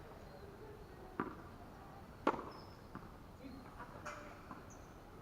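Tennis ball struck by rackets and bouncing on the court during a rally: a few sharp pops, the loudest about two seconds in.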